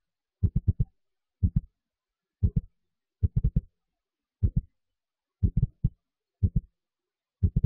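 Deep thumps in quick clusters of two to four, repeating about once a second, with complete silence between the clusters.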